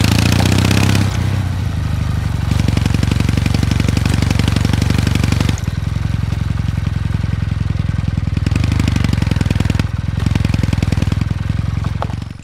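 Kawasaki W800 Street's air-cooled parallel-twin engine running on the move, the throttle opened and eased off several times. It eases off just past halfway and pulls harder again a few seconds later.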